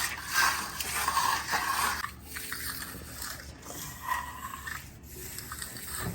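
Repeated scraping strokes of a tool rubbing over concrete, quick and rhythmic for about two seconds, then fainter and more scattered.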